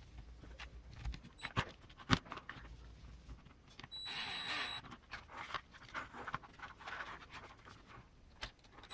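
Small hand-assembly sounds while screws are fitted into plastic RC transmission parts: scattered clicks and taps of parts and tools on a bench, one sharp click about two seconds in, and a brief whir lasting under a second about four seconds in.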